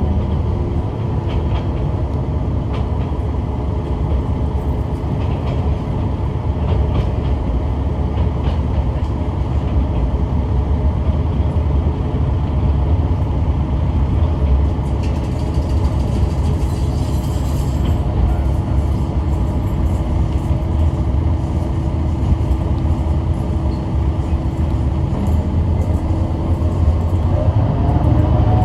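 Kishu Railway diesel railcar running along the line, heard from inside the car: a steady low rumble of engine and wheels. A hiss of higher noise comes in about halfway through, and the engine note rises near the end.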